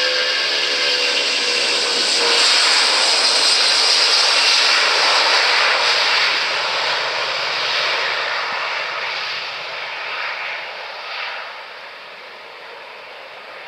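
Boeing 757-200 jet engines at takeoff power on the takeoff roll: a loud, steady jet noise that is loudest about two to five seconds in as the aircraft passes, then fades as it accelerates away down the runway.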